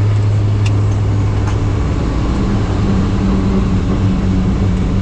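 Helicopter engine and rotors running steadily, heard as a loud, even noise with a low hum that gives way to a slightly higher hum about halfway through.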